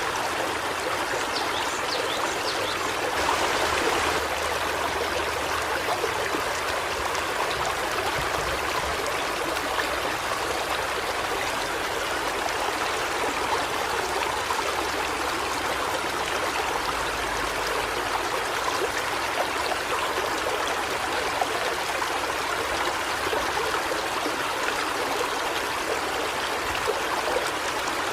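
River water flowing steadily, a continuous even rush, swelling slightly about three seconds in.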